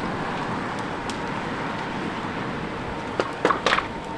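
Burning semi-truck cab: a fully involved vehicle fire giving a steady rushing roar, with a few sharp pops and crackles about three seconds in.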